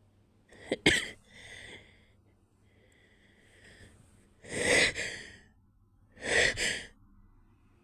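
A person's stifled sneezes with the nose held shut and breathing between them. There is a short, sharp sneeze about a second in, then a softer breath, then two louder, longer breathy sneezes about four and a half and six and a half seconds in.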